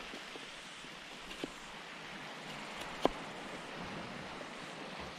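A few sharp knocks of a hunting knife cutting through potato onto a driftwood board, the loudest about three seconds in. Underneath is a steady wash of surf and wind.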